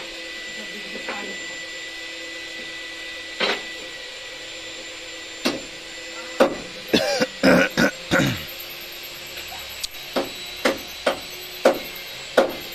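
Hammer blows on metal truck parts: a few single knocks, then a quick run of ringing strikes about seven seconds in, then more knocks about half a second apart near the end. A faint steady hum underneath.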